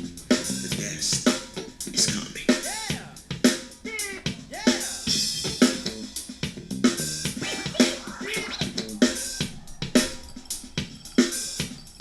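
Drum-heavy music with a steady beat, played back through an XDOBO Queen 1996 Bluetooth speaker for a sound test, with a few swooping sounds about three to five seconds in.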